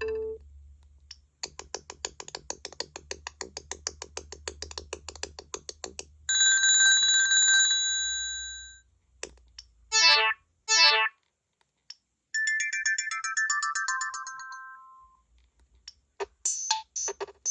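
Gigaset C630A cordless phone handset playing a series of short electronic ringtones one after another, with brief pauses between them: first a fast string of rapid pulses, then a steady ringing chime, then two quick chirps, then a run of stepped falling tones, with another ringtone starting near the end.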